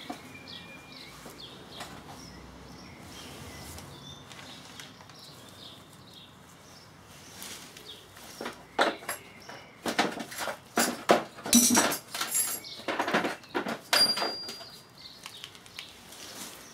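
Plastic sheeting rustling and small steel parts clinking as nuts, washers and lock washers are handled around a gearbox casing. It is quiet for the first several seconds, then from about eight seconds in comes a run of sharp clicks and crinkles with a couple of short metallic rings.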